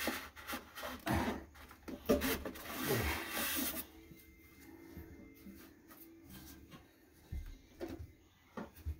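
Porcelain toilet tank rubbed and scraped against the bowl while the tank bolts are pushed through, with clunks, for about four seconds; then quieter, with a few light knocks near the end.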